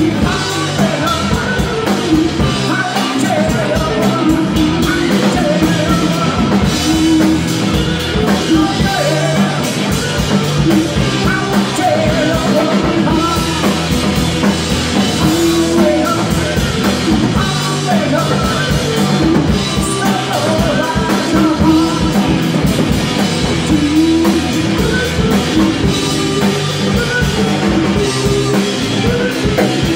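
Live rock band playing with lead vocals, electric guitars, bass and a drum kit.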